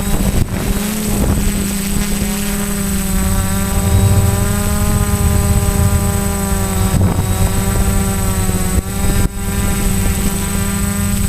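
Quadcopter's electric motors and propellers whining at a near-steady pitch, over a low rumble.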